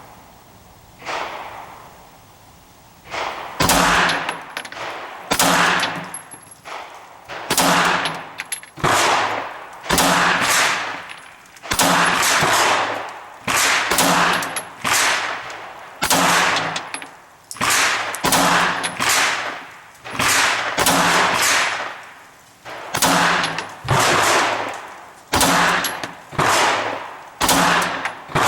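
CZ P-09 pistol fired in a fast string, shots coming roughly once a second, each sharp crack followed by a ringing echo. The first couple of shots are fainter, and the firing gets loud and steady a few seconds in.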